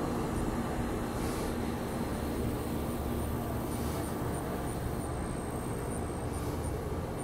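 Steady low outdoor rumble, with a faint high ticking repeating about three times a second.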